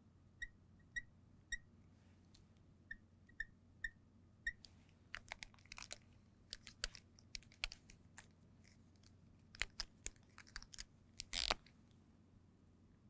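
Marker on a glass lightboard. There are short, high squeaks about twice a second for the first four seconds. Then comes a run of faint taps and scratches as small circles are drawn, with one louder scrape near the end.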